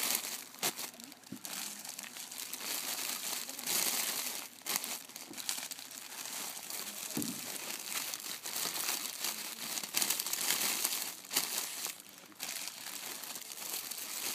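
Clear plastic flower sleeves crinkling and rustling as sleeved hydrangea bunches are handled and pushed into a cardboard box, uneven and louder in spells.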